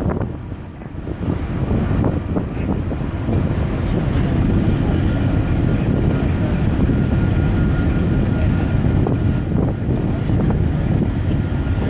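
Wind buffeting the microphone over a steady low rumble, with a faint thin steady whine joining about four seconds in.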